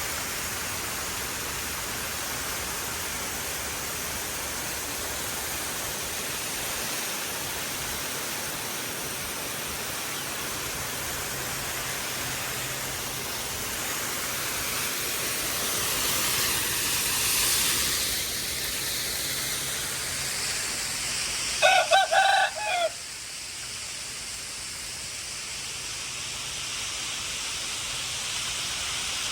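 Steady hiss of water spraying from a garden hose, swelling for a couple of seconds past the middle. About three-quarters of the way through, a rooster crows once, the loudest sound.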